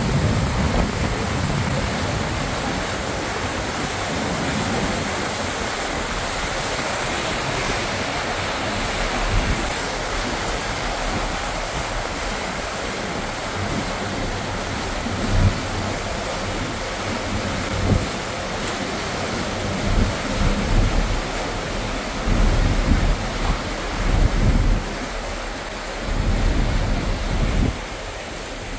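Steady rushing of a ferry's churning wake, heard from the stern. From about halfway, wind gusts buffet the microphone again and again.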